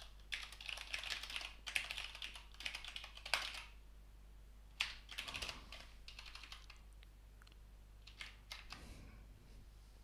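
Typing on a computer keyboard: a dense run of keystrokes over the first few seconds, a shorter run around the middle, and a few scattered key presses near the end.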